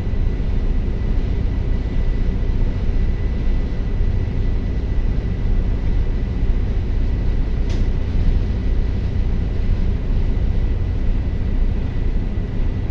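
Daihatsu diesel generator engine running at a steady speed, a loud unbroken low rumble that does not rise or fall, with one faint click about eight seconds in.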